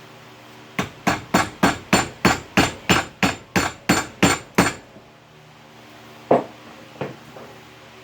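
Hammer blows: a quick, even run of about fourteen strikes, roughly three or four a second, then after a pause one more hard blow and a lighter one.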